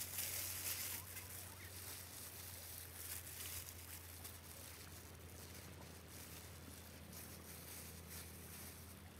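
Thin plastic food-prep gloves crinkling as hands rub marinade into a raw whole chicken, for about the first second. Then a faint steady low hum under quiet outdoor ambience.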